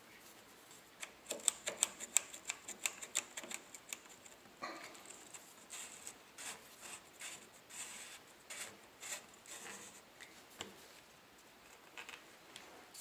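Faint rapid clicking and scraping of small metal parts as a castle nut is spun by hand onto an AR-15 buffer tube, clamping the sling attachment end plate against the lower receiver; the clicks are densest in the first few seconds and give way to softer rubbing.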